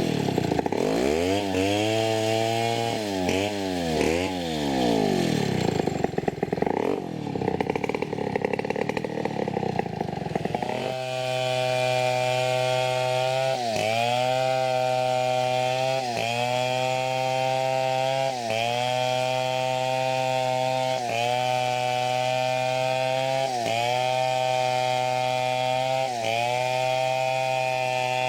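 Two-stroke chainsaw cutting teak. For the first ten seconds or so the engine speed rises and falls repeatedly, then it holds steady at high revs, dipping briefly every two to three seconds as the chain is pushed into the wood.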